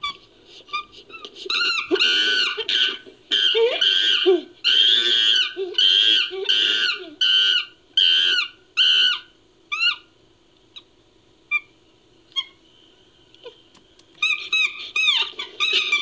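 Chimpanzee calls mixed into a creature sound effect. A fast series of high, arching calls comes about two a second, thins out to a few scattered short calls, then turns dense again near the end.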